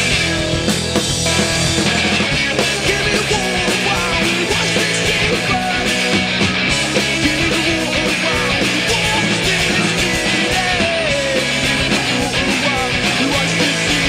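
A rock band playing live, with electric guitars and a drum kit driving a loud rock song.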